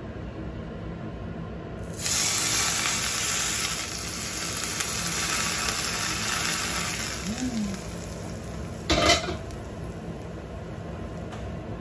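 Hot oil poured from a wok onto chopped green onions in a bowl, sizzling sharply from about two seconds in and dying down over several seconds. A short loud clank comes a little before the end, as the wok is set back on the gas hob.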